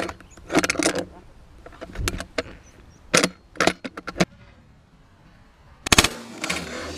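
A single shotgun shot about six seconds in, the loudest sound, fired at a flushed partridge and trailing off in a fading echo. Before it come several short sharp knocks and rustles.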